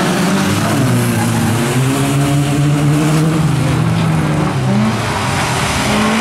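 Several bilcross race cars, VW Beetles among them, running hard together through a bend, their engines revving and rising and falling in pitch against one another.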